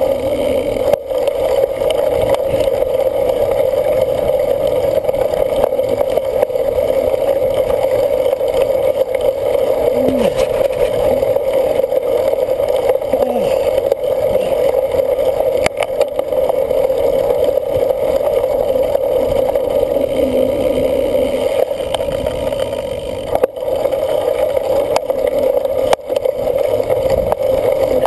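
Steady rushing wind and riding noise picked up by a camera on a cyclocross racer's bike or helmet during the race.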